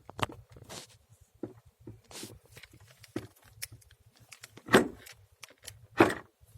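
Clicks and knocks from handling the parts and tools of a portable chiropractic table, with two louder thuds near the end.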